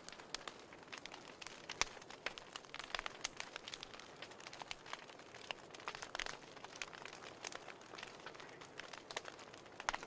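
Fire crackling in a fireplace: irregular small pops and snaps over a soft, steady hiss.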